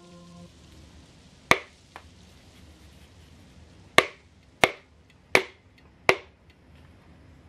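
Wooden hammer handle knocking a piston down through a ring compressor into a cylinder bore of a Dodge 5.2 Magnum V8 block: five sharp taps, one early and then four about a second or less apart.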